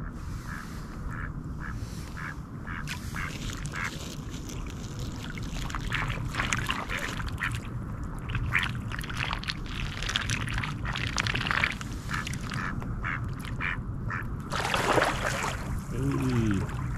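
Mallard ducks quacking from the water, a long run of short repeated calls that grows busier partway through, with a brief louder burst of noise about fifteen seconds in.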